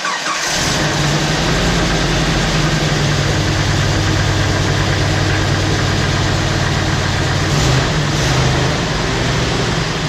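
A 1998 Jeep Wrangler's engine idling steadily just after being started, with a slight rise in level about eight seconds in.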